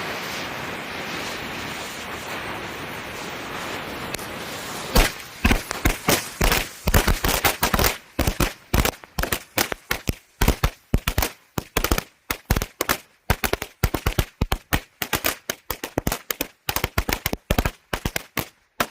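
Firecrackers: a steady hiss for about five seconds, then a long, fast, irregular run of sharp cracker bangs, several a second, that stops just before the end.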